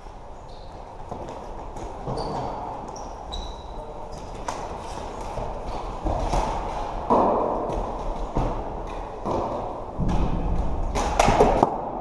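Floorball play: sharp clicks and clacks of sticks and the plastic ball, a few short squeaks, and louder thuds and bursts of noise about seven seconds in and again near the end.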